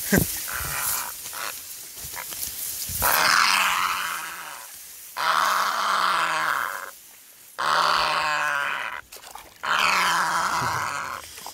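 A bird giving harsh, growling calls, each about a second and a half long, repeated roughly every two seconds.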